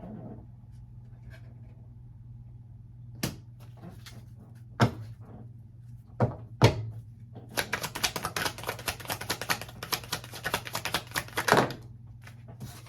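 Tarot cards being handled: a few separate sharp taps, then about four seconds of rapid clicking from the deck being shuffled, stopping abruptly.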